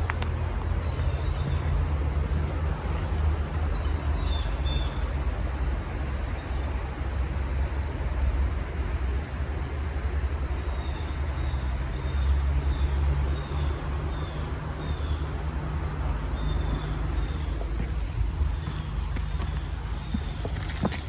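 Outdoor trail ambience dominated by a steady low rumble. Above it runs a thin, steady high tone, with short high chirps now and then that come several in a row in the second half.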